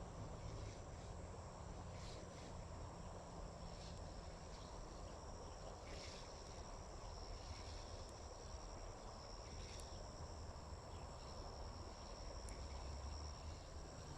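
Insects trilling steadily in a high continuous drone, faint, over a low steady rumble.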